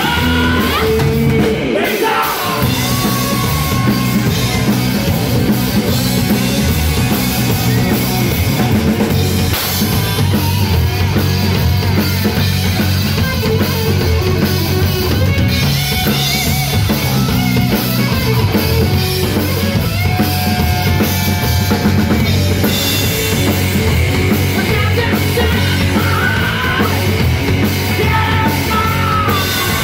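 Rock band playing live: electric guitar, bass guitar and drum kit, with a male singer singing and shouting into a microphone.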